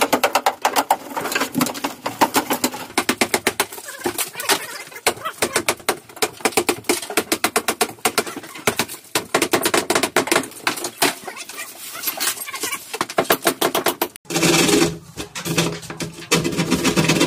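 Sped-up time-lapse audio of interior demolition: a fast, dense clatter of hammer and pry-bar knocks on cabinets and plaster. About fourteen seconds in, it gives way to the steady whine of a handheld power drill.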